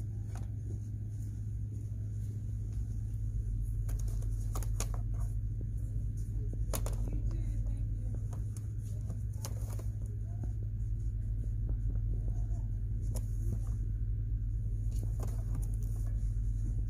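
Store ambience: a steady low hum, with scattered light clicks and knocks of merchandise being handled on a shelf.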